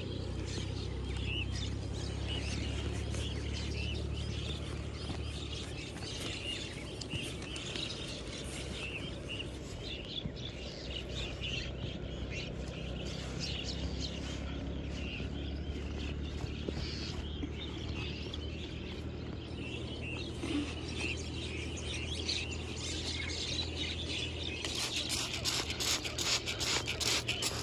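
Birds chirping in the background over a steady low rumble, with scattered scraping and clicking as soil is scraped away by hand and tool. About 25 seconds in, a hand-pumped trigger spray bottle starts spraying in quick repeated squirts.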